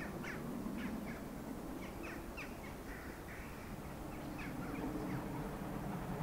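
Birds calling in short, sharp, falling calls, several a second, over a low rumble that swells near the end.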